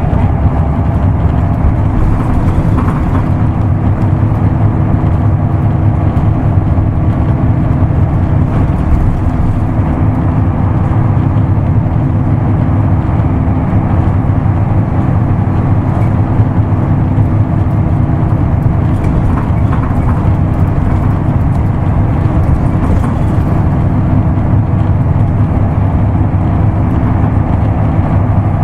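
Isuzu Erga Mio bus's six-cylinder diesel engine running steadily under way, heard from inside the cabin.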